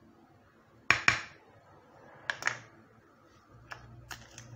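A metal spoon clinking against a glass mixing bowl as salt is spooned into flour. There are two sharp clinks about a second in, then a few lighter taps.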